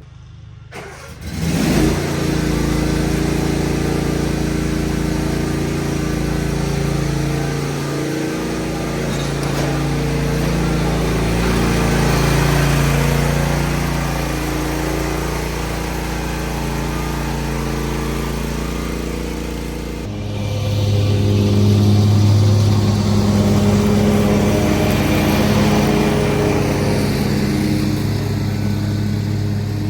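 Lawn mower engine starting up about a second and a half in and running steadily while cutting grass, its note shifting about two-thirds of the way through.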